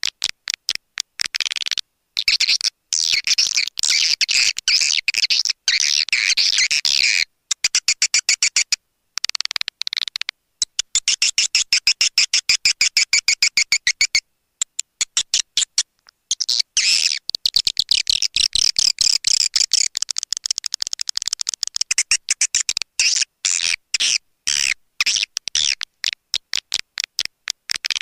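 Recorded swiftlet calls used as a lure sound to draw swiftlets into a nest house. Fast trains of clicking, buzzy twitters run for a few seconds at a time, broken by short pauses.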